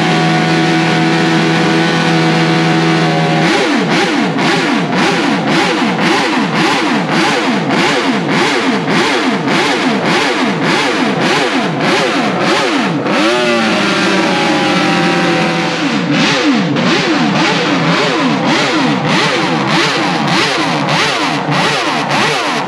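Honda RC174 six-cylinder four-stroke Grand Prix racing engine, very loud, held at a steady high note for a few seconds. Then it is blipped hard, revving up and down about twice a second, with one brief dip about halfway, until it cuts off abruptly at the end.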